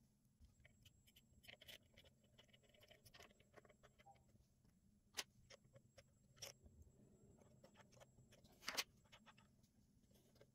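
Faint clicks and taps of change gears and the gear quadrant being handled and fitted by hand on a Proxxon PD250/E mini lathe's change-gear train, set up for a 1 mm thread pitch. A few sharper clicks stand out, the loudest about nine seconds in.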